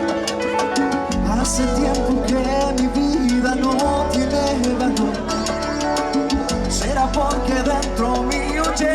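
Live Latin dance band playing an instrumental passage: a melody over a bass line and a steady, even percussion beat.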